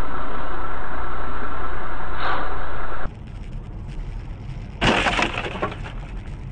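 Steady vehicle noise cuts off abruptly about three seconds in. Then, over quieter background, a sudden crunching impact with breaking and cracking comes about five seconds in and dies away over a second: a car collision.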